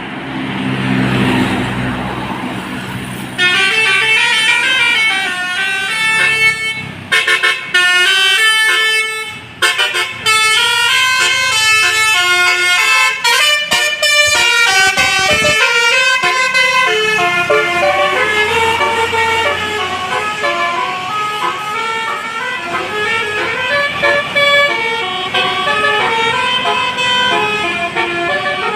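Indonesian bus telolet horn of the Basuri type, driven by a DAV melody module, playing a fast tune of quickly stepping notes, several at once. A low rumble precedes it for about the first three seconds.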